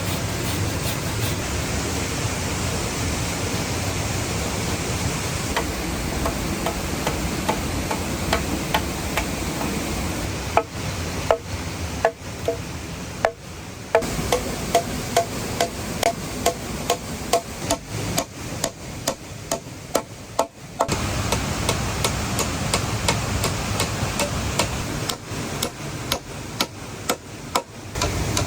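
Repeated blows of a tool on wood, about two knocks a second with a short hollow ring, over a steady rush of falling water. The blows come from hand-building a wooden hut frame.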